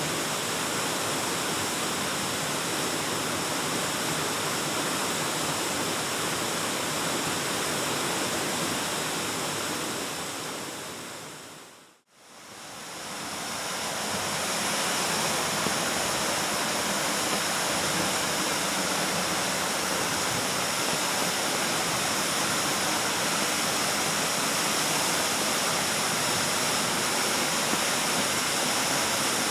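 Waterfall rushing in a steady, even roar of water. About twelve seconds in it fades out to a moment of silence and then fades back in.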